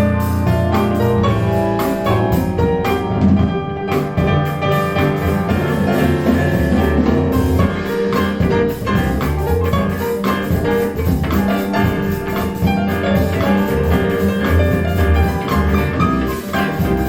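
Instrumental music with piano and drums, played back through a pair of KEF LS50 bookshelf speakers.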